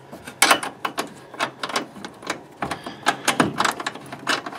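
Irregular metallic clicks and clinks, several a second, as washers and a nut are fitted by hand onto a bolt through a light's metal mounting bracket under a truck bumper; the first click, about half a second in, is the loudest.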